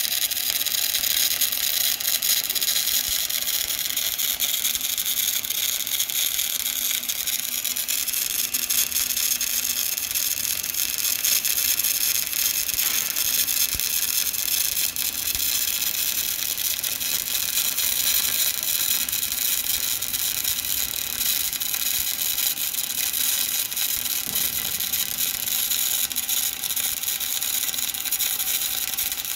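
Electric arc welding on steel plate: the arc's steady crackle and sizzle, going on without a break.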